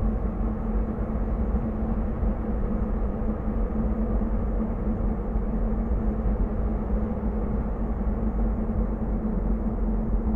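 A steady low rumbling drone with a held low hum under it, unchanging throughout and with no beat.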